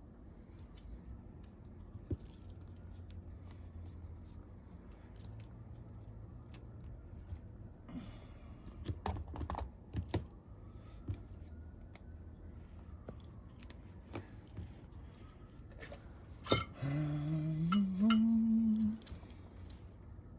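Scattered small clicks and taps of soldering tools, wires and connector parts being handled at a workbench. Near the end comes a sharper click, then a brief hum of a person's voice that rises in pitch in steps for about two seconds.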